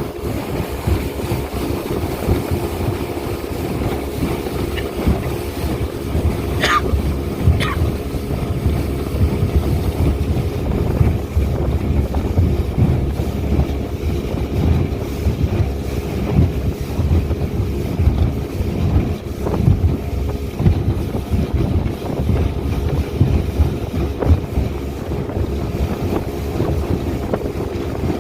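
Speedboat engine running steadily at cruising speed, with wind buffeting the microphone. Two short high-pitched sounds come about seven seconds in.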